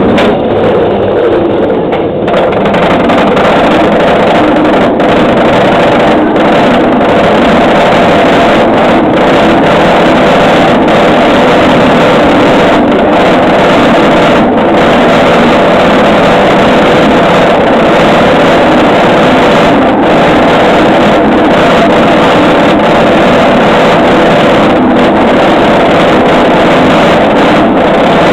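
B&M inverted roller coaster train being hauled up the lift hill by its chain: a loud, steady mechanical drone that grows fuller about two seconds in.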